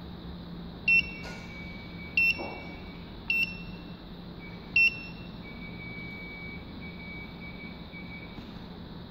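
Keypad of a Maynuo M9716 DC electronic load beeping as its buttons are pressed: four short, high beeps in the first five seconds, over a steady hum.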